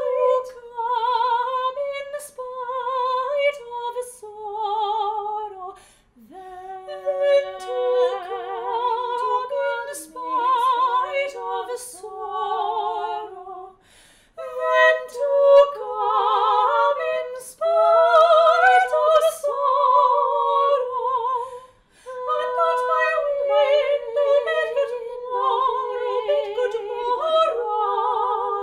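One soprano overdubbed into a two-part duet in Baroque style, the two voices weaving long runs of notes with vibrato. The phrases break off briefly about three times.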